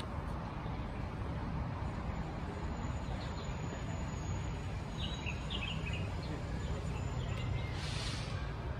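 Outdoor park ambience: a steady low rumble with a few faint bird chirps about five seconds in, and a brief hiss near the end.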